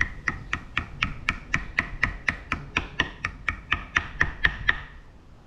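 Even metallic clicking, about four clicks a second, each with a short ringing note. It stops shortly before the end.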